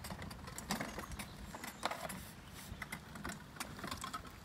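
Kettler Kettcar Barcelona pedal go-kart rolling off a skate ramp onto wet asphalt. Scattered light clicks and rattles from its wheels and frame run over a low rumble.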